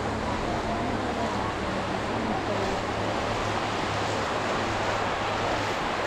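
Ocean surf washing onto a sandy beach, a steady, even wash of wave noise, with faint distant voices of people on the beach.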